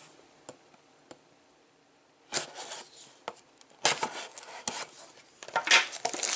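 Trading cards and a cardboard blaster box being handled on a table, with short rustles, taps and scrapes. It begins after about two seconds of near quiet and grows busier near the end.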